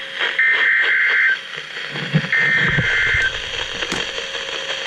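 Weather radio sending the SAME header of an EAS alert: two buzzy digital data bursts, each about a second long and about two seconds apart. They are the last two of the three header repetitions that open a severe thunderstorm warning. A faint low murmur runs under the second burst, and a sharp click comes near the end.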